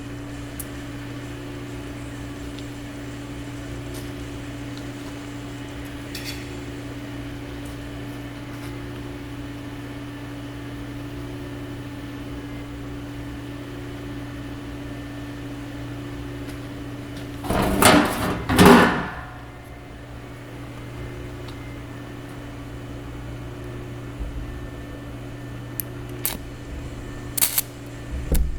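Steady electrical hum of a welding machine while a driveshaft is being welded. Just past the middle come two short, loud hissing bursts, and a few light clicks follow near the end.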